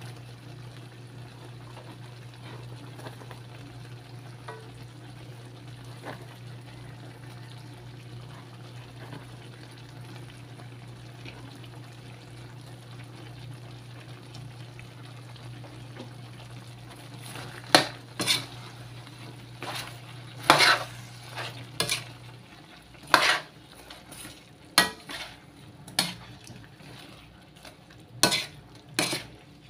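Chicken adobo and onion rings sizzling softly in a wok. Over the last third, a spatula scrapes and knocks against the pan in a quick series of strokes as the pieces are stirred.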